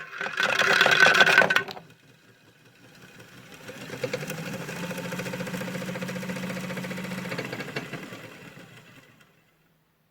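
Small electric motor of a modified toy washing machine running with a dense clatter of acorns in the drum, stopping about two seconds in. After a short pause the motor runs again, building up to a steady hum, then winds down and stops near the end.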